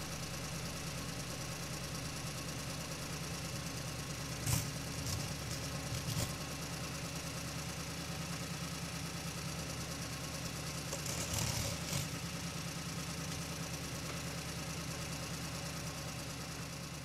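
A motor vehicle's engine idling steadily, an engine sound effect laid over the display of a toy car, with a few faint knocks about four and six seconds in and again around eleven to twelve seconds in.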